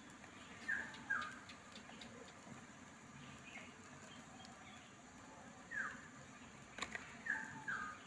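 Small bird chirping: short, quick falling chirps, a pair about a second in and more near the end. A single sharp tap, a knife meeting the wooden cutting board, comes just before the chirps near the end.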